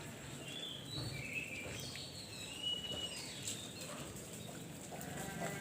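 Birds chirping, a few short calls in the first half, over steady outdoor background noise.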